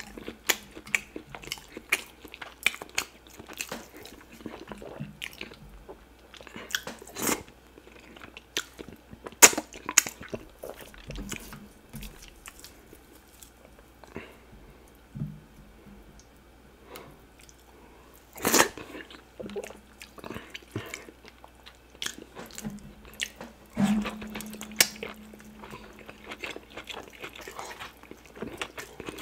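Close-miked eating: chewing and mouth smacks as fufu dipped in cocoyam soup and chewy cow tripe are eaten by hand, with many scattered sharp clicks and smacks. A low steady hum lasts a few seconds about three-quarters of the way through.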